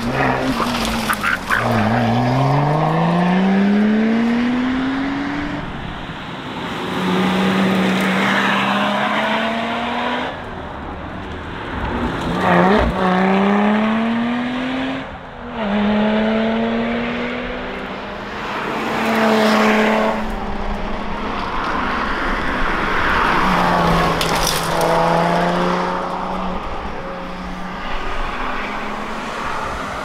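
Lotus Exige Sport 350's supercharged V6 accelerating hard past the roadside several times, the revs climbing through the gears and dropping briefly at each upshift, then fading as the car pulls away.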